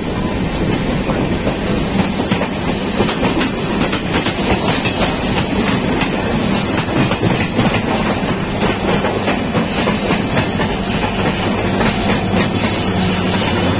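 Two Indian passenger trains running side by side, heard from the open door of one: a steady rumble with fast clickety-clack of coach wheels over rail joints. Near the end the parallel train's WDP4B diesel locomotive draws alongside and its engine hum joins in.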